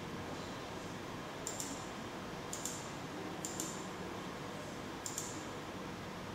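Computer mouse button clicking four times, each click a quick press-and-release pair, over a steady background hiss.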